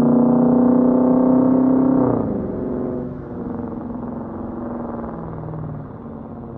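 Dodge Charger Daytona's Hemi V8 on dual Jones Turbine JR20 mufflers pulling hard under throttle; about two seconds in the engine note drops suddenly as the revs fall, then the exhaust runs on at a lower note and fades.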